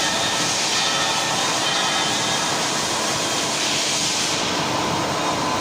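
CNC lathe running through a groove-cutting operation: a steady machine hiss with a few faint steady tones. The highest part of the hiss thins about four seconds in.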